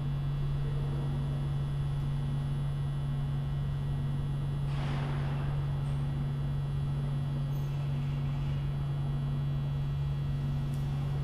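Steady low electrical hum of a subway station with a train standing on the far track, with a fainter higher tone that comes and goes. A brief hiss about halfway through.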